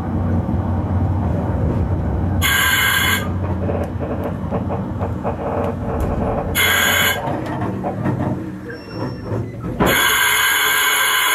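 Oigawa Railway Ikawa Line train running with a steady low rumble and scattered clicks. Three shrill high tones sound over it: two short ones, then a longer one near the end.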